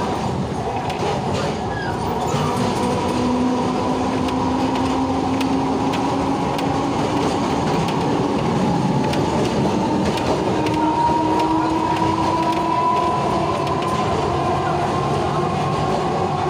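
Ride noise heard from inside a moving tram: a steady rumble of wheels on the rails, with a motor whine that slowly rises in pitch.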